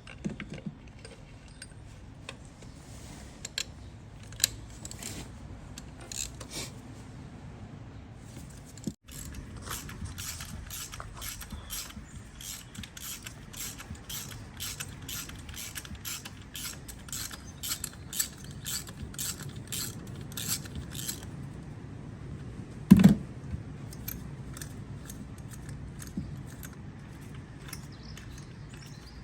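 Ratchet socket wrench clicking as a spark plug is unscrewed: scattered clicks at first, then from about ten seconds in a run of evenly spaced clicks, about three a second, for some eleven seconds. A single loud knock comes about twenty-three seconds in.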